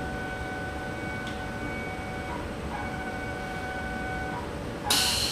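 Motion gantry's drive motors whining with steady high tones as the glue dispensing tool traces an epoxy pattern across a silicon sensor, the whine pausing briefly and changing pitch between moves. Near the end a sudden loud hiss cuts in.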